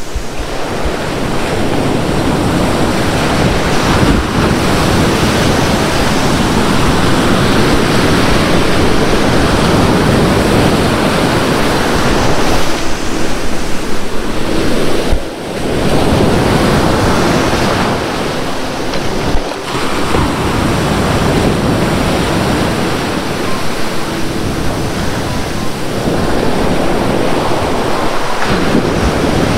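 Sea surf breaking and washing up a sandy beach in a continuous rushing wash that swells and ebbs with each wave.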